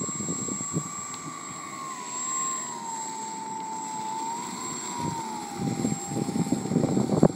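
Radio-controlled model airplane's motor and propeller whining as it taxis on the road, one thin tone that wavers and slowly drops in pitch with the throttle. Rough crackly noise underneath grows louder near the end.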